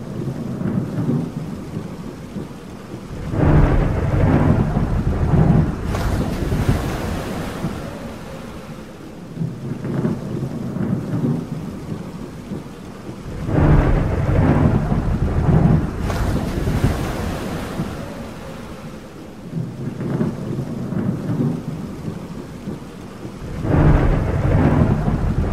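Thunderstorm ambience: low rolling thunder swells up three times, about ten seconds apart, over a steady hiss of rain, with fainter rumbles between them and a thin crack twice.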